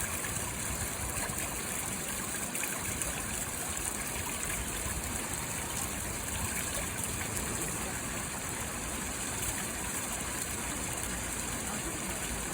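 Water fountain running: a steady rush of spray and falling water splashing into the basin, constant and unbroken.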